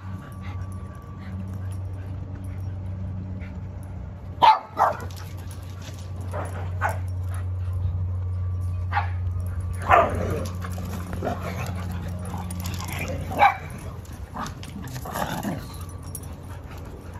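Several dogs playing together, giving short, sharp barks and yips every few seconds, the loudest about four and a half, ten and thirteen and a half seconds in, over a steady low hum.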